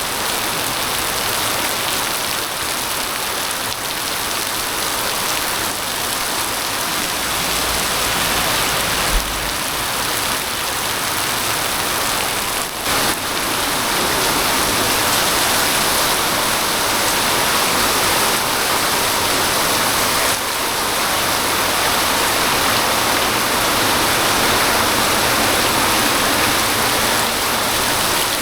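Heavy rain pouring down steadily in a storm, a dense, even hiss.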